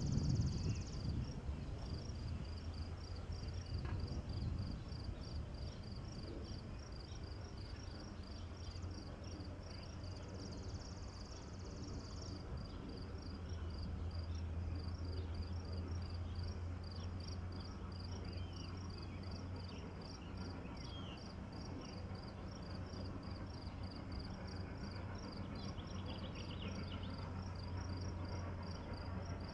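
Insects chirping in a steady, rhythmic pulse, with a brief higher buzz twice. Under them runs a low, steady rumble that grows stronger about halfway through.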